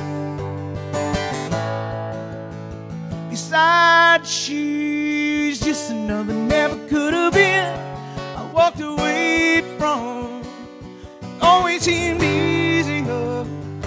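Acoustic guitar strummed through an instrumental passage of a country song, with a high melody line over it that bends and wavers in pitch in several short phrases.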